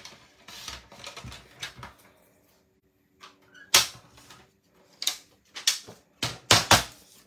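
Paper trimmer cutting cardstock: a scratchy rasp as the blade is slid along the track over the first couple of seconds, then several sharp plastic clacks and knocks as the trimmer is handled and moved off the desk, the loudest nearly four seconds in and a quick cluster near the end.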